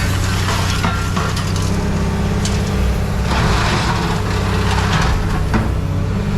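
A machine's engine running steadily, with scraping, crunching and cracking of debris being moved in and out of a bin.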